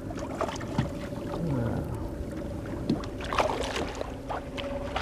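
Water sloshing around a small fishing boat, with a faint steady hum and scattered small knocks and clicks.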